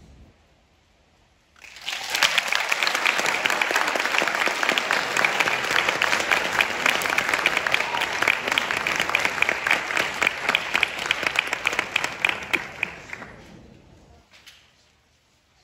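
Audience applauding: after a short hush it starts about a second and a half in, holds steady, then thins out and dies away near the end.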